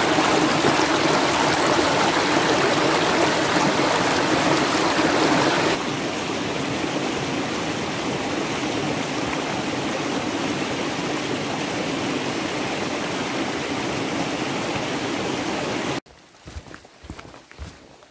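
Rushing water of a stream or rapids, a steady rush that drops in level about six seconds in. It cuts off abruptly near the end, leaving a few faint scattered clicks.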